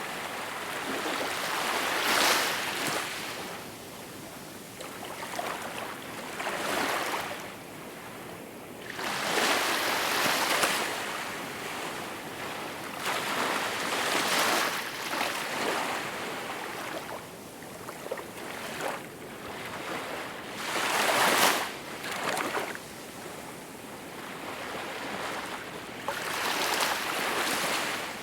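Small waves washing ashore: a rushing wash of water that swells and fades away again, about every four to six seconds.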